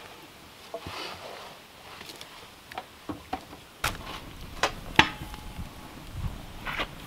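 A few soft knocks and rustles, then a wood fire crackling with several sharp pops, the loudest about five seconds in.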